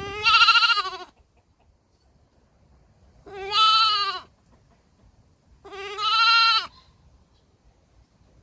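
Baby goat bleating three times, each call about a second long with a slight rise and fall in pitch, a couple of seconds apart.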